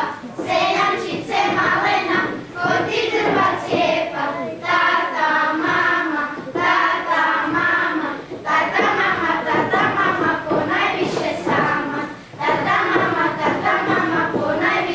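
A group of children singing a traditional folk song together as a choir, in phrases with short breaks between them.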